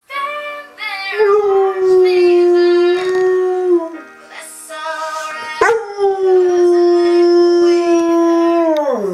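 A black Labrador–pointer mix dog howling along to a pop song playing alongside it. There are two long, held howls, and the second slides down in pitch at its end.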